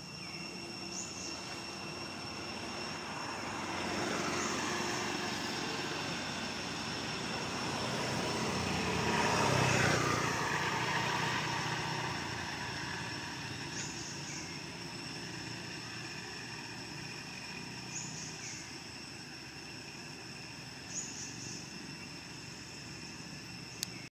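A motor vehicle passes by: its noise swells to a peak about ten seconds in, falls in pitch as it goes past, then fades. A steady high whine and a few short high chirps carry on throughout.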